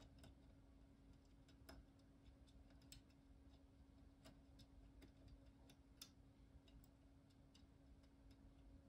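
Faint, sparse clicks, one every second or two, of a disc detainer pick turning the discs inside a Solex R40 disc detainer lock, with the discs felt to be at the gate but the lock not yet opening. A faint steady hum runs underneath.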